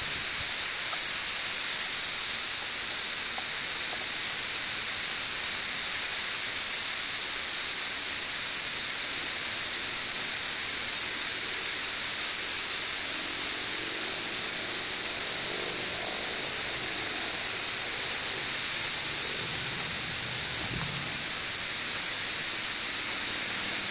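Dense chorus of 17-year periodical cicadas (Brood XIV) from millions of insects, a steady, unbroken high-pitched hiss-like drone.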